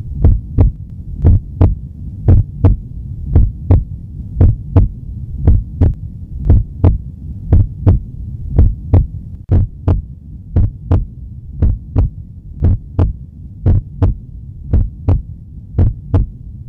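Heartbeat sound effect: paired thumps, about one pair a second, over a steady low hum.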